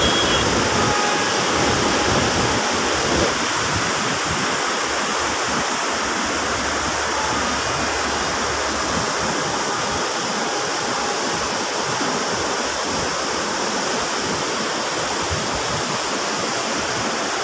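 A fast, swollen river rushing over rocks in muddy white-water rapids, a steady, unbroken wash of water noise.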